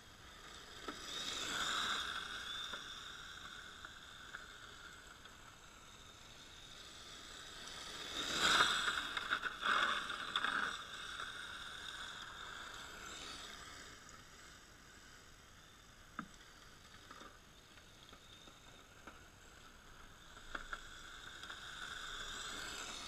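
Electric RC drift car, an HPI Sprint 2 Drift on a 2S LiPo, whining as it drifts around on asphalt and passes the camera several times, swelling and fading with each pass. It is loudest on a close pass about eight seconds in, with a few sharp ticks later on.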